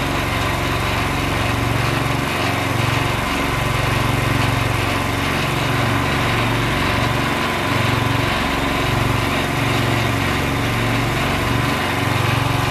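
Engine of a homemade hydraulic water-well drilling rig running steadily as the drill pipe turns down through soft sand. Its low note rises and falls in a slow, even pulse about every second and a half.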